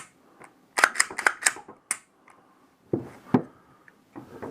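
Metal clicks and clacks of an H&K VP9 pistol's slide and frame being fitted back together during reassembly: a quick run of clicks about a second in, a single click near two seconds, then two louder clacks near the end.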